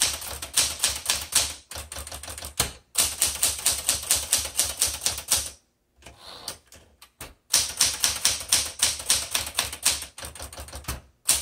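Smith Corona Galaxie Twelve manual typewriter being typed on briskly: fast runs of type-bar strikes, about five or six a second, broken by short pauses, with a longer, sparser break about halfway through.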